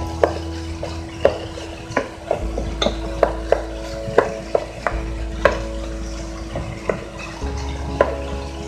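Wooden spoon stirring and tossing chopped vegetables and meat in a hot nonstick pot as they stir-fry. Irregular sharp knocks of the spoon against the pan come one to three a second over a light sizzle.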